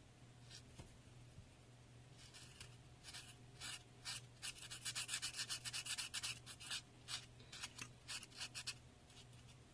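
Permanent marker drawing on a piece of hair-curler foam: quick scratchy back-and-forth strokes, a few at first, then a dense run of rapid strokes in the middle that thins out toward the end.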